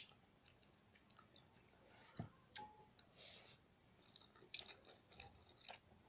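Faint eating sounds: a fork working in a bowl of Samyang spicy instant noodles, and a mouthful of noodles slurped and chewed, with scattered small clicks.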